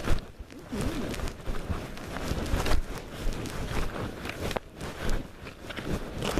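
Footsteps on the ground with rustling and handling noise, uneven and irregular.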